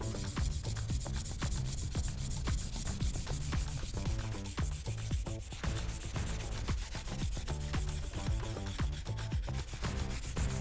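Rust eraser rubbed back and forth over the steel of a VG10 nakiri blade in quick, repeated strokes, scrubbing off surface rust before sharpening.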